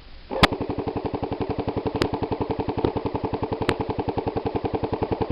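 Airsoft gun firing one long full-auto burst, a fast, even rattle of shots starting about half a second in, with a few louder sharp cracks over it.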